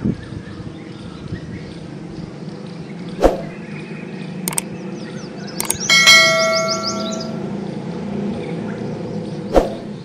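Sound effects from a subscribe-button animation: several sharp mouse clicks, then about six seconds in a bright bell-like notification ding that rings on for about a second, over a steady low background hum.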